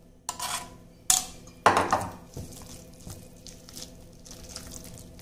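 Silicone spatula mixing a wet soybean keema and gram-flour batter in a stainless steel bowl: squelching and scraping, with three sharp knocks against the bowl in the first two seconds.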